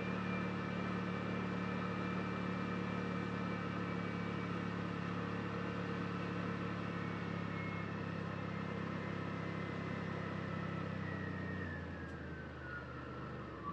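Side-by-side UTV engine running at a steady cruise over a dirt trail, with a high thin whine over it. About twelve seconds in the engine drops off and the whine falls in pitch as the machine slows down.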